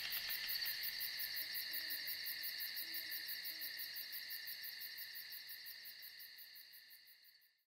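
Steady, high, rapidly pulsing insect chirring, with a few faint low hoots about three seconds in. It fades out gradually to silence near the end.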